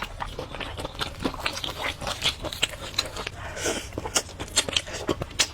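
Close-miked eating sounds: a person chewing with many quick, irregular wet clicks and smacks of the mouth, and a short soft breath or slurp a little past halfway.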